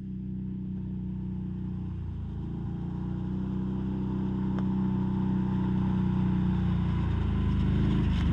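A motor vehicle engine running at a steady pitch, growing gradually louder.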